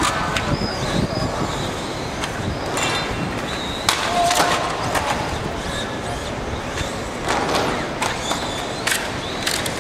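Small remote-control toy cars running on a hard outdoor court, with rolling-wheel noise and several sharp knocks.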